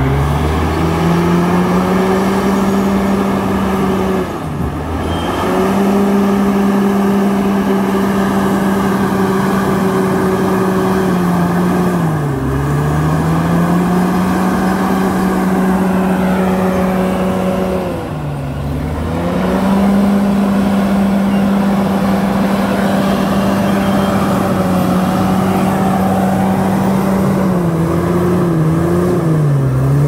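Komatsu D68ESS crawler dozer's diesel engine running under load as it pushes soil with its blade. The engine note is steady, with its pitch dropping and recovering about four times.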